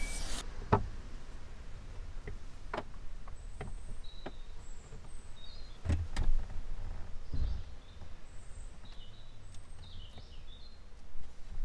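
Scattered knocks, clicks and clunks of a camper van's kitchen cupboard being worked on and loosened for removal, with faint bird chirps in the background.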